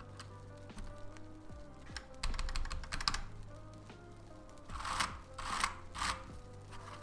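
Typing on a thocky 80% mechanical keyboard with freshly fitted keycaps: a fast burst of keystrokes about two seconds in, then three separate heavier strikes near the end. Background music plays throughout.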